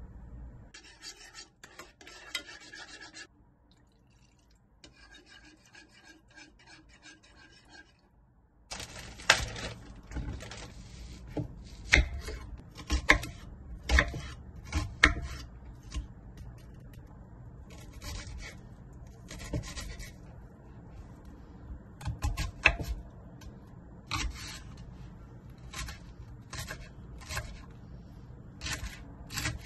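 Kitchen knife chopping onion and green onion on a wooden cutting board: crisp slicing and irregular sharp knocks of the blade hitting the board, starting about nine seconds in. Before that, softer scraping and rubbing.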